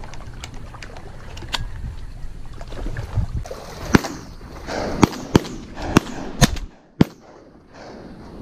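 Close handling noise as a hunter shifts in shallow marsh water with a shotgun: a string of sharp clicks and knocks, the loudest about four seconds in and near seven seconds, with water sloshing between them. Wind rumbles on the microphone and drops away about seven seconds in.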